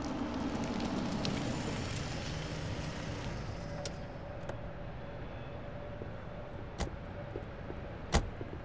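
A Mazda SUV drives up and comes to a stop, its running sound fading after the first few seconds to a low steady hum. Near the end come two sharp clicks, the second the louder, as a car door is opened and shut.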